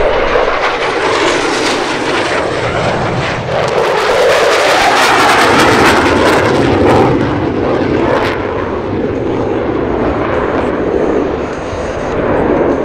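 Jet noise of a single F-16 Fighting Falcon on a low pass, loud throughout. It is loudest and crackling about four to eight seconds in, then eases as the jet pulls up and climbs away.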